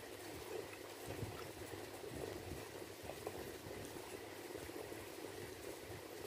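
Bare hand mixing and squeezing cooked rice with curry on a steel plate: soft, wet squishing with small clicks over a steady background noise.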